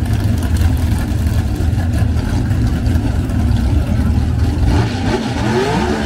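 Drag race car engine running with a heavy, loud low rumble; about five seconds in its pitch rises as it revs up, then holds at a higher steady note.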